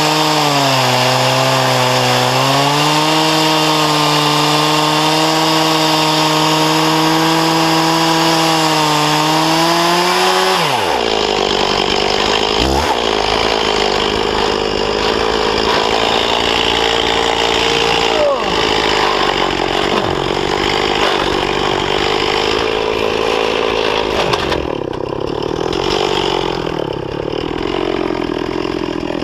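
Stihl 036 two-stroke chainsaw running near full throttle, ripping a sugar maple log lengthwise in an Alaskan chainsaw mill, with a chain the owner admits needs sharpening. Its pitch sags under load about a second in and recovers. About a third of the way through, the sound turns abruptly rougher and noisier and carries on that way.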